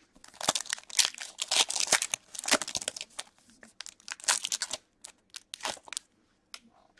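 The wrapper of a hockey card pack (Upper Deck SP Authentic) being torn open and crinkled by hand, with dense crackling for the first five seconds or so. After that come a few scattered, lighter crackles and ticks as the cards come out.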